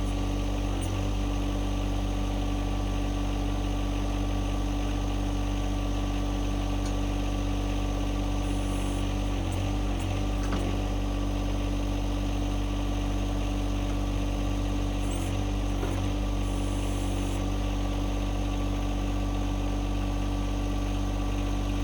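John Deere 2025R compact tractor's three-cylinder diesel engine idling steadily while it powers the backhoe hydraulics, with a few faint clicks now and then.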